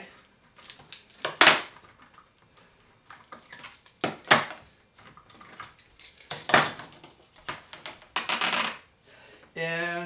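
Metal F-clamps being loosened off a glued wooden assembly and set down on a wooden workbench: a handful of separate sharp metal clanks and clatters, the loudest about six and a half seconds in.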